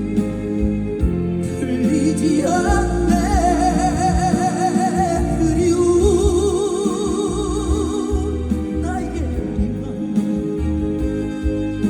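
Live trot song with band accompaniment. A lead melody line holds two long notes with a wide vibrato.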